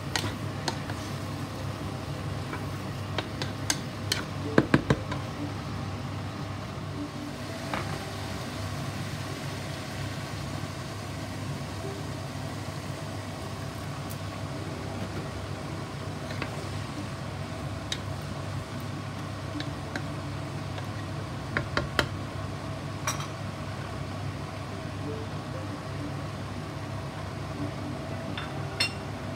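Wooden spatula stirring chopped chayote in a metal pot, knocking against the pot now and then. The loudest cluster of knocks comes about five seconds in and a couple more around twenty-two seconds, over a steady low hum.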